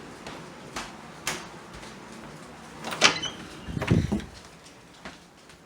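A door being slid open: a few light clicks, a sharp clack about three seconds in, then a short run of low thumps.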